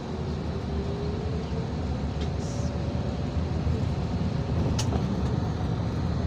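Steady low rumble of a moving motor vehicle, with a couple of light clicks.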